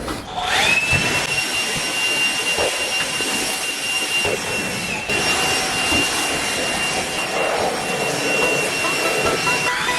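A high-speed motor spins up to a steady high-pitched whine over a rushing noise, running on with a brief dip about halfway through, and spins up again near the end.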